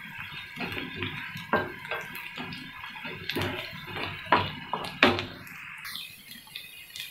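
Chopped onions and green chillies sizzling in oil in a nonstick frying pan, with a wooden spatula scraping and knocking against the pan at irregular intervals as they are stirred.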